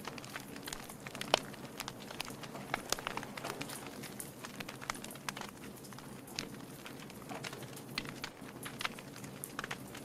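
Wood logs burning and crackling, with frequent irregular pops and snaps over a steady low hiss; one sharp pop is louder than the rest about a second in.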